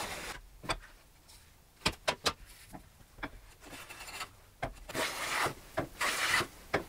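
Metal bench plane working a hardwood board by hand: a few short knocks, then from about five seconds in, two longer hissing strokes as the blade takes shavings.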